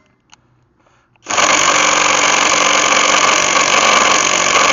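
Cordless impact wrench hammering steadily on a lug nut, starting about a second in and running without let-up; the nut is too tight for it and does not break loose.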